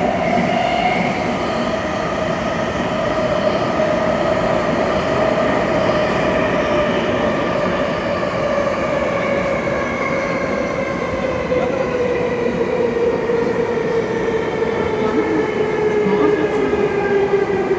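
Interior running noise of a Saitama Rapid Railway 2000 Series subway car: the IGBT-VVVF traction motors whine over the rumble of wheels on rail. The whine slowly falls in pitch as the train slows on its approach to a station.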